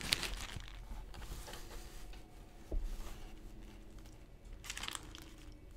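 Faint rustling of a paper sandwich wrapper and handling as a fried chicken sandwich is opened up, with a soft knock about three seconds in.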